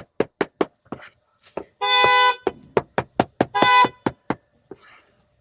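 Cleaver chopping cooked meat on a board in quick, regular strokes. A vehicle horn, most likely an electric scooter's, gives two short honks about two and three and a half seconds in; the honks are the loudest sounds.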